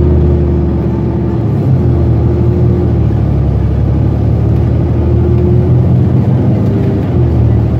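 A 2016 New Flyer XN40 bus's Cummins Westport ISL-G natural-gas six-cylinder engine idling steadily, heard from behind the rear engine compartment. A steady whine over it cuts in and out several times.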